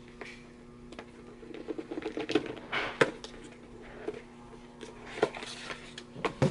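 Hands handling a CD album's card packaging and paper inserts: rustling and crinkling with scattered sharp clicks and taps, busiest about two seconds in, over a steady low hum.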